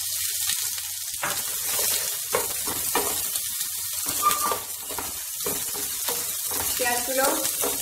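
Sliced red onions sizzling in melted butter and oil in a non-stick frying pan, with repeated scraping strokes of a wooden spatula stirring them.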